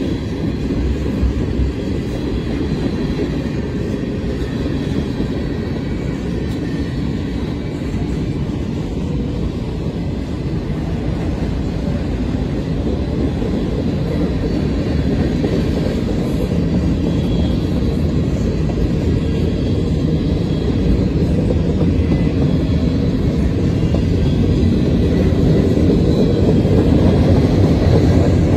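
Freight train cars rolling past on the rails: a steady low noise of steel wheels on track that grows gradually louder.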